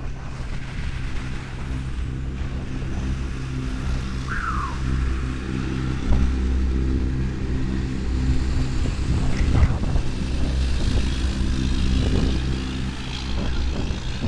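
A vehicle's engine running at a steady idle. There is a short falling chirp about four seconds in.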